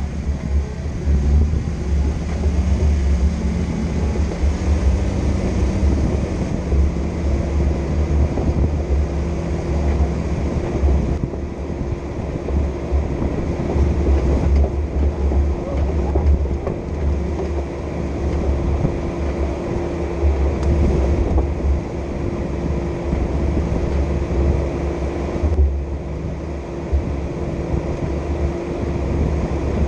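Off-road vehicle driving along a trail: a continuous engine and drivetrain rumble, heavy in the low end. A steady hum joins in about seven seconds in.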